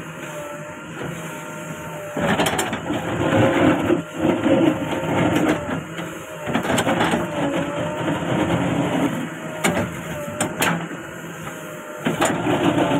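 JCB 3DX backhoe loader's diesel engine running at a steady pitch, getting louder and rougher in stretches as the machine works, with a few sharp metal knocks.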